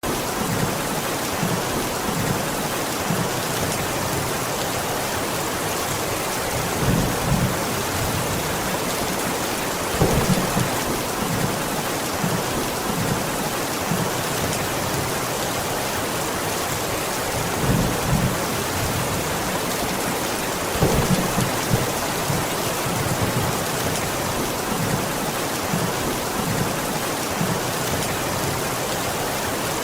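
Steady rain hissing, with several short low rumbles rising above it now and then.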